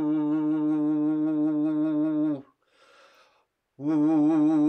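A man's voice holding a long, low vocal tone at one steady pitch with a slight waver, as healing toning. It breaks off about two and a half seconds in for a quick breath in, then starts again on the same note.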